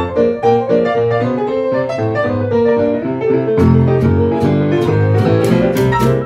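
Small jazz band playing live: a Yamaha grand piano leads with quick runs of notes over upright bass and archtop guitar. A little past halfway the sound grows fuller, with a steady rhythmic chop.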